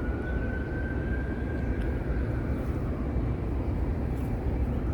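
Distant vehicle noise outdoors: a steady low rumble with a faint high whine that rises slowly over the first two seconds, fades, and rises again near the end.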